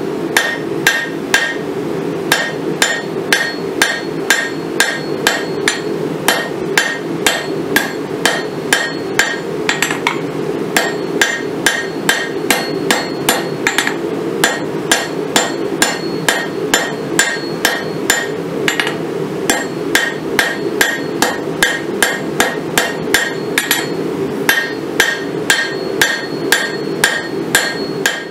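Forging hammer striking a red-hot steel railroad spike on an anvil in a steady rhythm of about two blows a second, many blows leaving a short metallic ring. A steady low hum runs underneath.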